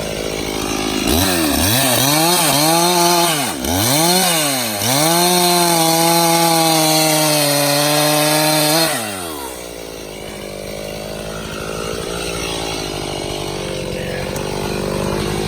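Two-stroke chainsaw idling, then throttled up about a second in; its revs dip and recover twice, hold high for about four seconds, then drop back to a steady idle.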